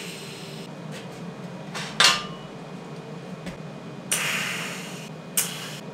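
TIG torch tack-welding stainless steel sheet: short bursts of arc hiss, a quick sharp one about two seconds in, a longer one lasting about a second just after four seconds, and a brief one near the end, over a low steady hum.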